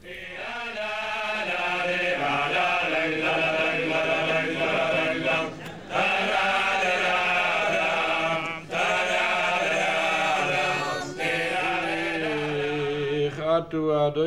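A group of Hasidic men singing a slow, chant-like melody together, with short breaks between phrases about six and nine seconds in.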